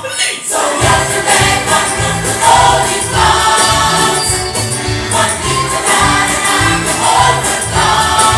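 Music playing: a choir singing over a song with a steady, regular beat.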